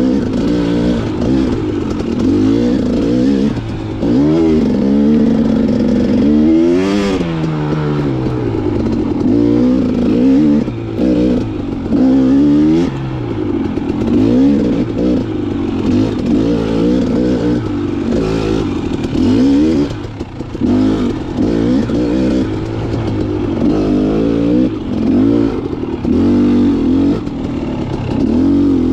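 KTM XC 300 two-stroke dirt bike engine, ridden under constantly changing throttle, its pitch rising and falling every second or two, with some clatter from the bike.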